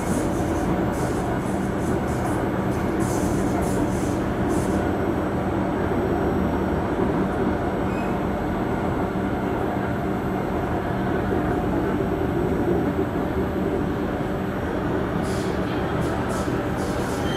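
MRT metro train running at speed, heard from inside the passenger car: a steady rumble of wheels on rail with a constant hum. Short hisses come in the first few seconds and again near the end.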